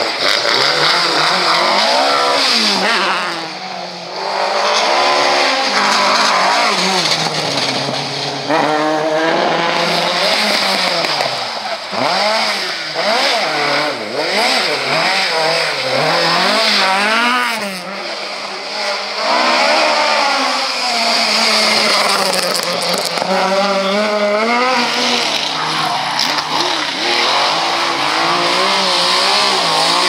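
Rally cars, Ford Escort Mk2s among them, driven hard past one after another, engines revving high with the pitch climbing and dropping through gear changes and lifts for corners.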